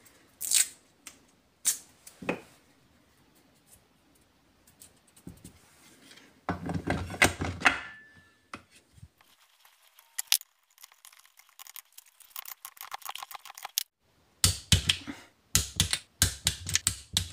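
Adhesive tape pulled and torn off a roll, then a loud metallic clatter as the cylinder head of a Kawasaki AR50 two-stroke engine is fitted over its studs. From about twelve seconds in, a ratchet wrench clicks rapidly as the head nuts are run down and tightened, with heavier clicking strokes near the end.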